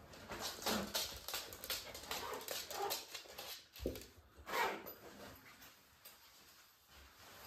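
Pembroke Welsh Corgis whimpering amid a quick run of clicks and scuffles, which die down about five seconds in.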